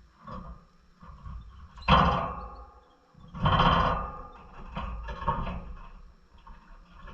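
Pet lovebirds moving about in their cage, giving a string of short, irregular knocking and rattling bursts, the loudest about two seconds in and a longer one about three and a half seconds in.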